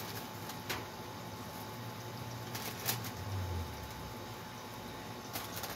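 Pork ribs sizzling on a hot foil-covered charcoal grill as they are laid down, a steady hiss broken by a few light clicks.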